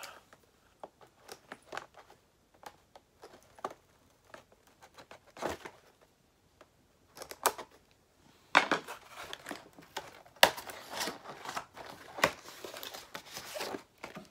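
Cardboard and plastic packaging of a boxed stationery set being opened by hand: scattered clicks and crinkles, then denser, louder rustling and crackling from about eight seconds in as the cardboard insert is worked out of the box.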